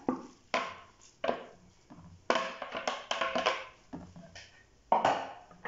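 A fork scraping and tapping against a bowl and a nonstick frying pan as ground turkey is scraped out into the pan and broken up. It comes as a series of short, separate scrapes and clicks, bunched together in the middle.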